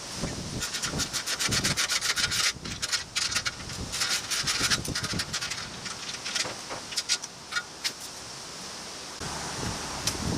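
Hand tools working on a motorcycle's forward exhaust clamp bolt: a run of rapid clicks lasting about four seconds, then a few single clicks.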